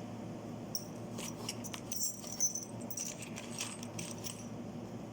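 Small pieces of jewellery clinking and jingling as they are handled: a scatter of light clinks starting about a second in and stopping shortly before the end.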